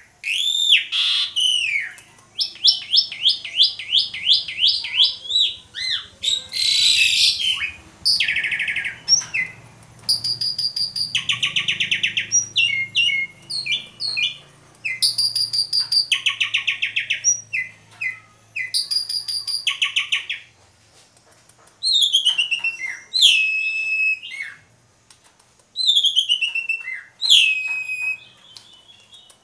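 An Asian pied starling (jalak suren) singing a long, varied song in phrases with short pauses. It mixes arching whistled notes, fast runs of repeated notes, buzzy trills and a harsh rasp, and near the end gives loud whistles that slide down in pitch.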